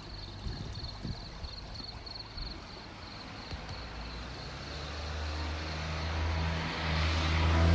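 A car approaching on a road nearby, its engine and tyre noise swelling over the last few seconds and at its loudest near the end. Before it builds, a high, fast-pulsing trill fades out.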